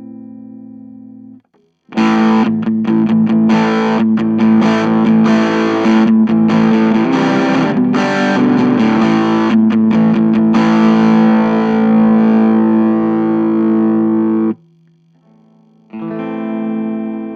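Electric guitar with a single-coil pickup through an Orange Micro Terror valve-preamp head, gain turned up for a distorted grunge tone and played as loud strummed chords that cut off abruptly. After a brief pause, a quieter, cleaner chord rings with the guitar's volume rolled back.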